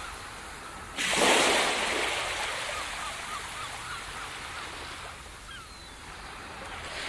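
Ocean surf: a wave breaks about a second in and its wash slowly fades away over the following seconds.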